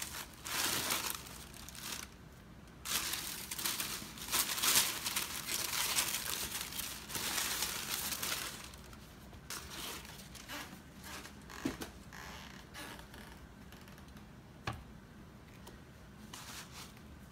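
Thin tissue paper rustling and crinkling as it is pulled out of a cardboard shoebox, loudest for the first eight seconds or so. After that comes fainter handling noise with a couple of light knocks.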